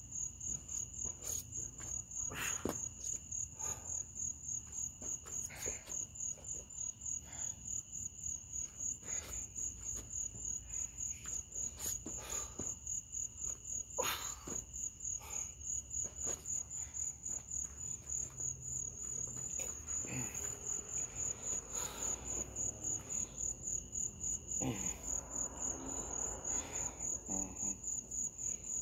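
Crickets chirping in a steady, high-pitched, regularly pulsing trill, with scattered soft knocks and rustles of movement over it; the sharpest knock comes about halfway through.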